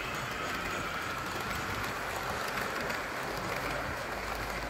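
Steady hiss of rain falling on a marquee's fabric roof.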